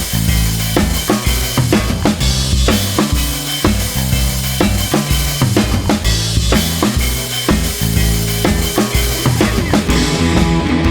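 Background music with a steady drum-kit beat: kick and snare hits over a bass line.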